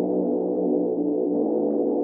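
Background music of sustained, gong-like synthesizer chords with no beat, changing to a new chord about a second and a half in.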